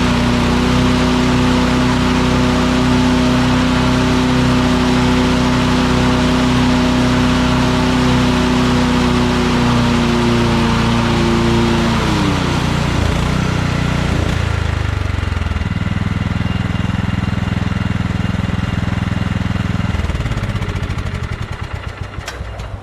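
Lawn tractor engine running steadily at speed. About twelve seconds in it is throttled down and its pitch drops to a lower running speed. Near the end it winds down and stops.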